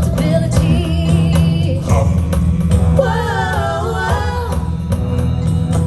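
Upbeat music with singing voices over a steady bass line and percussion.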